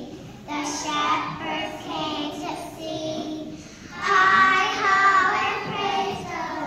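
A group of young children singing a song together, getting louder about four seconds in.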